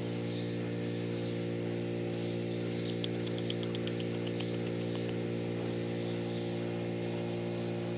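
A steady low hum made of several even tones, unchanging throughout, with a short run of faint fast ticks about three seconds in.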